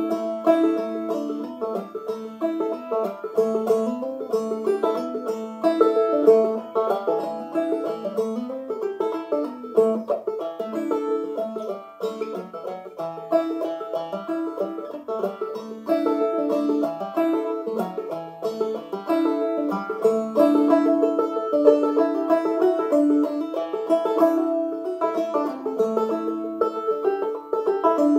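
Solo Ome Tupelo open-back banjo played clawhammer style in sawmill tuning: a steady, unbroken stream of quick plucked notes.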